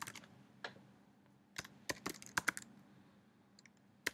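Typing on a computer keyboard: a couple of keystrokes at the start, a pause of about a second, then a quick run of about half a dozen keys, and a few faint taps near the end.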